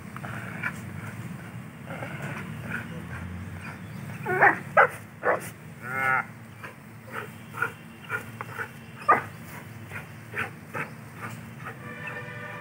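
Dog growling steadily while gripping a bite sleeve during protection work. A cluster of loud, short sharp vocal sounds comes around the middle, along with one drawn-out pitched call, and more short sharp sounds follow.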